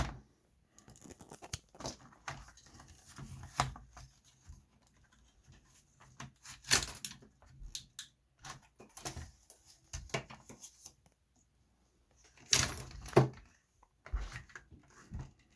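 Hands working the parts of an A&K Masada airsoft rifle: scattered clicks, rattles and scraping, with louder clatters about seven seconds in and again around thirteen seconds in.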